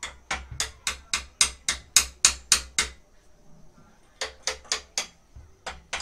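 Hammer tapping a clamped steel plate on a motorcycle frame, knocking it into line: quick runs of sharp metal-on-metal strikes about four a second, with a pause of about a second after the first three seconds.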